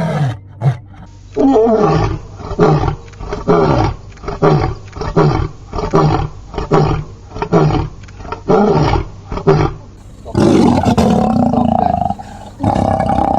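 Lion roaring: a long run of short, deep grunting roars, about two a second, then after about ten seconds longer, rougher roars.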